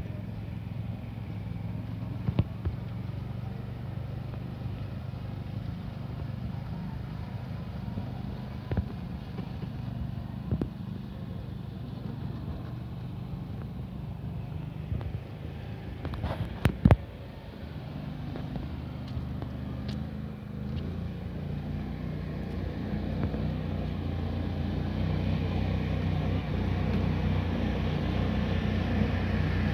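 Engine of an eight-wheeled amphibious all-terrain vehicle running steadily as it drives over rough grassy ground, growing somewhat louder toward the end. A few sharp clicks cut in, the loudest a pair about two-thirds of the way through.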